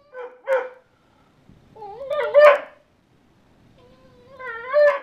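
A dog giving three short whining barks that waver up and down in pitch, about two seconds apart, the middle one the loudest.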